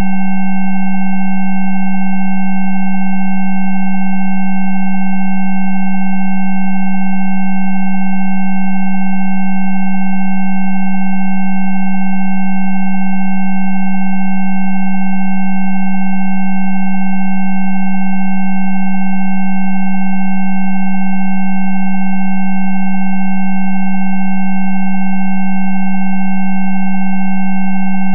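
Electronically generated Rife frequency tones: a loud, steady low tone with several quieter higher tones held alongside it, none changing in pitch or level.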